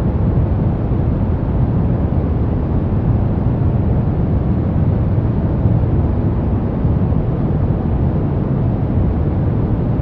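Steady brown noise: an even, deep rumbling hiss, strongest in the low end and soft in the highs, with no changes.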